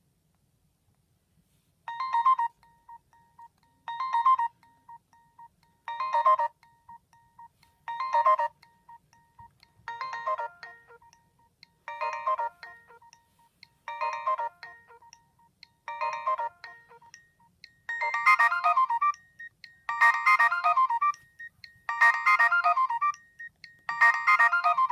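A Nokia 216 ringtone playing through a Nokia 7100 Supernova's loudspeaker. A short chiming phrase repeats every two seconds from about two seconds in, and from about eighteen seconds in each phrase grows longer and fuller.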